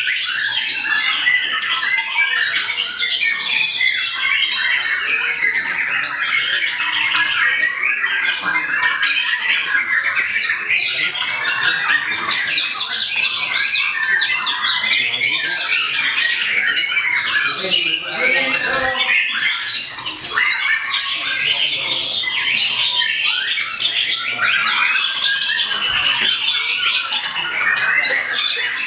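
Many caged songbirds singing at once at a bird-song contest: a dense, continuous overlap of fast chirps, trills and whistled phrases.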